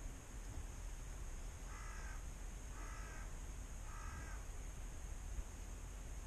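A crow cawing three times, about a second apart, over a steady low rumble.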